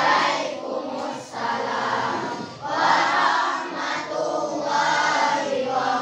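A class of schoolchildren singing together in unison, in held phrases of about a second each with short breaks between them.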